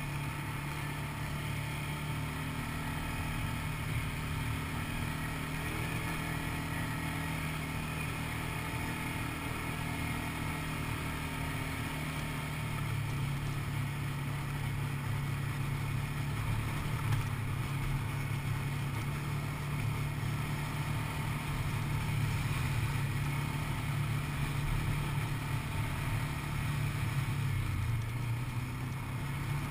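Quad bike (ATV) engine running steadily under way, a continuous drone that gets a little louder about halfway through.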